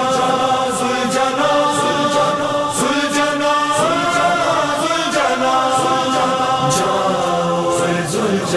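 Noha, an Urdu mourning lament, sung by a group of voices in long, drawn-out notes that slide slowly between pitches, over a light steady beat.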